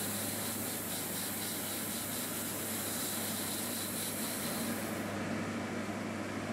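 Airbrush spraying paint in a steady hiss that stops about five seconds in, over a steady low hum.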